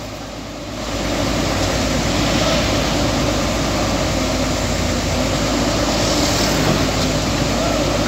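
Heavy diesel engine running steadily, a low drone with a few steady tones, a little quieter for the first second.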